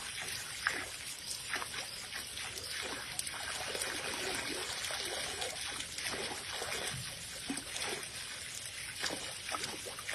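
Water trickling and splashing, with many small irregular splashes.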